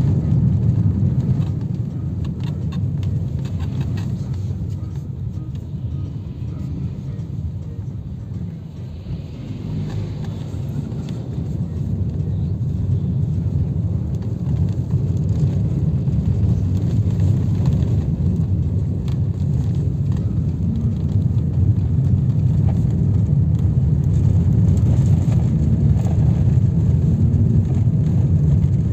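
Steady low rumble of a car's engine and tyre noise heard from inside the cabin while driving. It dips for a moment about a third of the way in, then grows gradually louder.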